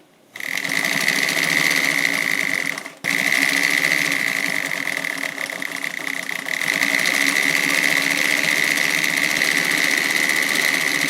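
Singer 319W sewing machine running steadily as it stitches through layers of ripstop fabric, with a high, steady motor whine. It starts about half a second in, stops briefly near three seconds, then runs on.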